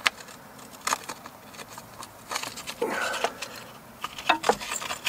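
A few light clicks and rubbing as the ABS wheel-speed sensor cable and its plastic retaining clip are handled and pressed into place against the suspension, with scattered single clicks and a short scuffling patch in the middle.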